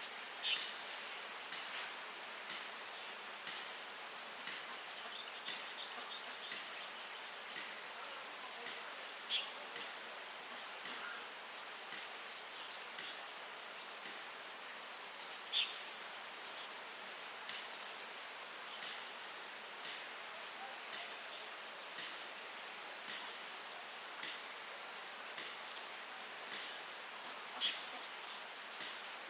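Insects trilling: one thin high-pitched tone runs unbroken, while a second, slightly lower trill stops and restarts every few seconds. Brief sharp chirps or ticks break through now and then, the loudest three spread across the stretch.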